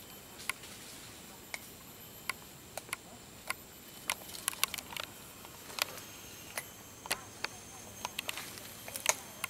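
Irregular sharp clicks and crackles, a few a second and busiest in the middle and near the end, over a faint steady high hiss.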